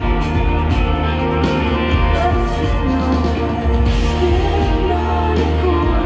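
Live rock band playing loud: electric guitars, bass and drums.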